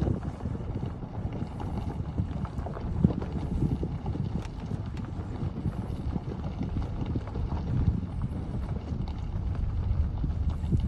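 Pickup truck driving slowly, heard from inside the cab: a steady low rumble with scattered light clicks and knocks.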